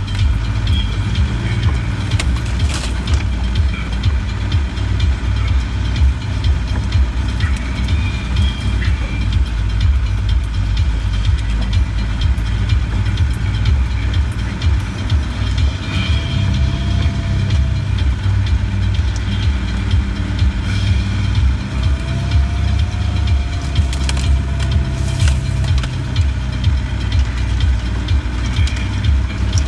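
Land Rover engine heard from inside the cab, a steady low rumble as the vehicle crawls along a rough, overgrown track. There are a few brief knocks, and a faint whine comes and goes in the second half.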